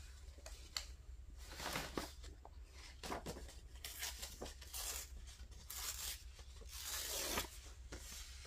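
Paper being handled and torn by hand: a faint series of short, irregular rips and rustles, the longest one near the end.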